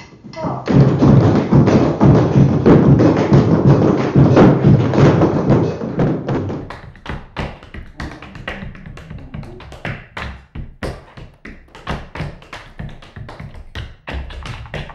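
Tap shoes striking a floor in quick rhythmic footwork. There is a dense, loud stretch first, then from about six seconds in sharper, separate taps.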